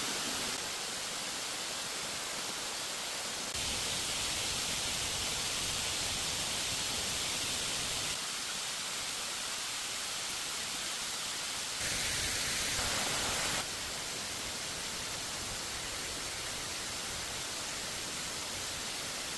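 Waterfall rushing: a steady, hissing wash of falling water that changes abruptly in loudness and brightness several times.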